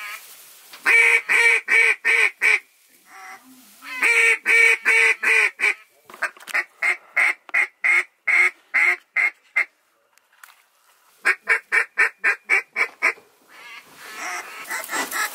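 A hunter blowing a handheld duck call in runs of quacks, calling to ducks flying over the blind. It starts with two runs of about six even, loud quacks, then a longer run of shorter notes that fade away, and near the end a quick run of about nine quacks.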